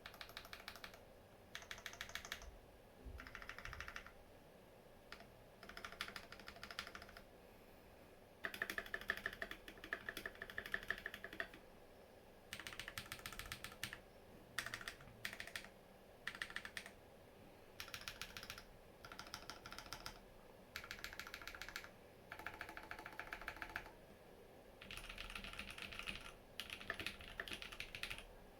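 Typing in short bursts on a Matrix Lab Noah mechanical keyboard with lubed Holy Panda tactile switches, a top-mounted aluminium plate and GMK keycaps. The keystrokes come as rapid clicky runs of one to two seconds, about a dozen of them, with short pauses between.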